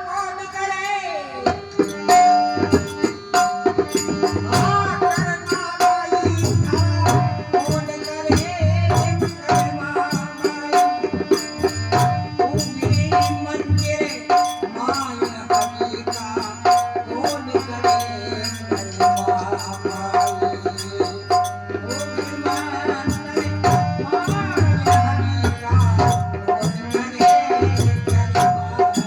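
Indian folk music played as a duet: a hand drum keeps a steady rhythm with a short ringing strike repeating on the beat, under a wavering melody line.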